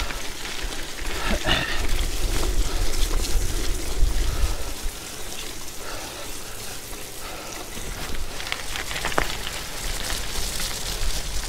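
Gravel bike tyres rolling over wet dirt, gravel and leaves, a steady crackling hiss. Wind rumbles on the microphone for the first four or five seconds, then drops away.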